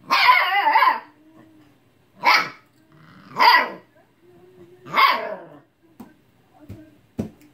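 Husky puppy barking at a cat in high, wavering yelps, demanding that it play: one long call at the start, then three shorter barks over the next few seconds. A few soft knocks follow near the end.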